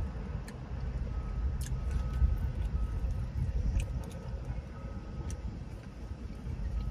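Wind buffeting the microphone: an uneven low rumble that rises and falls, with a few faint clicks.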